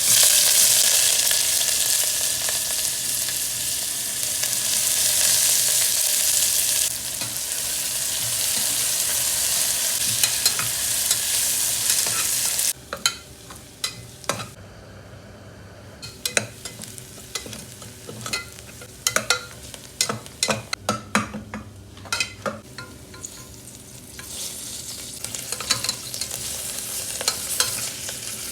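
Food going into hot oil in a cooking pan and sizzling loudly, starting suddenly. About halfway through the sizzle drops away to a quieter stretch of stirring, with a spoon knocking and scraping against the pan many times, and the sizzle builds again near the end.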